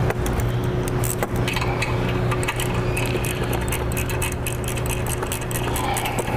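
Hand ratchet wrench clicking rapidly, with light metallic clinks, as the factory bolts holding the relocated vacuum canister are run back in, over a steady low hum.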